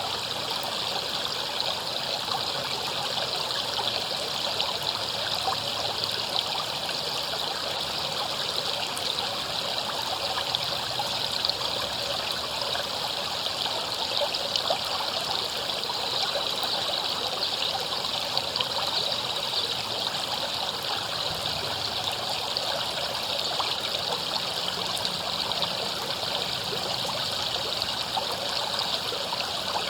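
River water flowing and splashing over rocks, a steady babbling rush with small splashes throughout.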